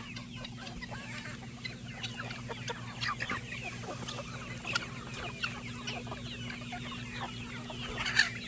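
A large flock of chickens clucking and chirping, many short calls overlapping throughout, with a louder sharp call about eight seconds in. A steady low hum runs underneath.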